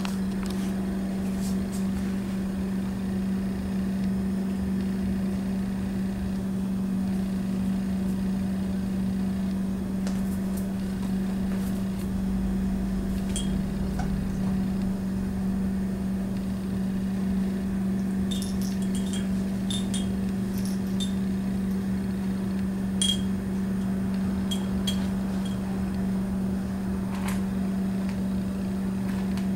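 Steady low mechanical hum that does not change, with a few faint light clinks scattered through the second half.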